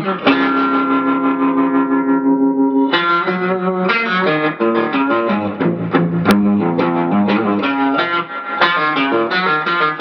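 Electric guitar played through an overdriven amplifier. A held note rings for about three seconds, then gives way to a quick run of single notes, with one sharp click about six seconds in.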